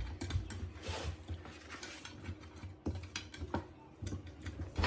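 Kitchen clatter: scattered light clinks and knocks of utensils and dishes as chicken is handled in a tray.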